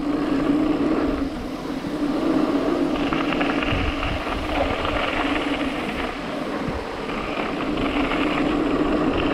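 Mountain bike rolling along a dirt trail: tyre and trail noise with wind buffeting the rider's camera microphone, and a steady low buzz underneath.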